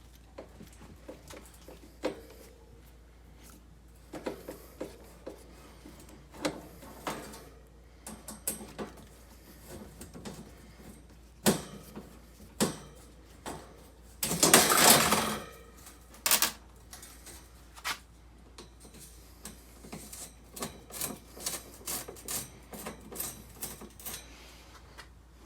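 Irregular clicks and light knocks of hands handling an old window air conditioner's metal cabinet, with one louder scraping rustle lasting about a second midway and a quicker run of clicks near the end.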